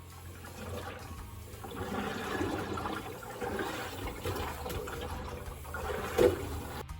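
Panasonic drum-type washing machine turning its drum, with water and laundry sloshing and swishing and a thump about six seconds in. The swishing 'shaka-shaka' noise is the kind the uploader takes for a worn drive belt close to slipping off (the H35 error).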